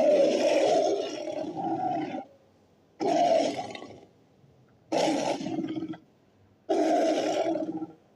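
Custom sound-effect roars of a Smilodon, a sabre-toothed cat: four roars in a row, the first and longest about two seconds, each starting abruptly and trailing off, with short silent gaps between them.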